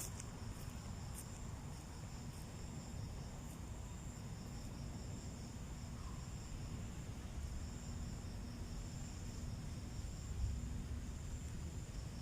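Insects, such as crickets, chirping in a steady high-pitched chorus, with a low rumble underneath.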